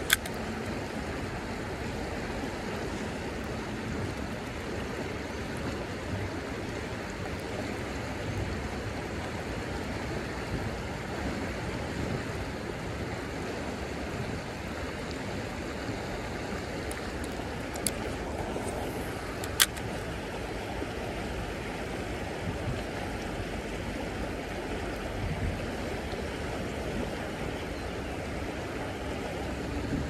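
Steady rush of a fast-flowing creek running over riffles, with a few sharp clicks: one right at the start and two more a little past the middle.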